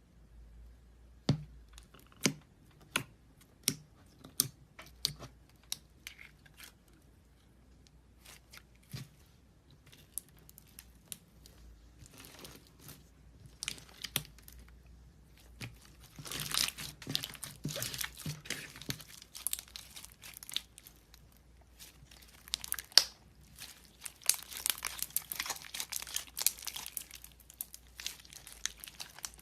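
Slime being pressed and stretched by hand. It starts as a run of separate sharp pops, then turns into bursts of dense crackling around the middle and again near the end.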